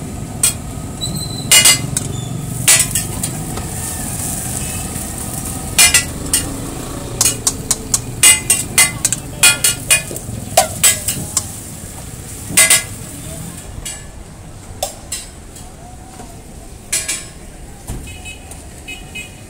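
Metal spatula clanking and scraping against a large flat steel griddle in sharp, ringing, irregular strikes, over a steady sizzle of burger patties and buns frying on the hot plate.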